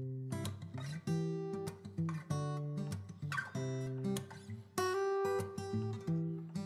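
Background music: a strummed acoustic guitar playing chords at an even pace.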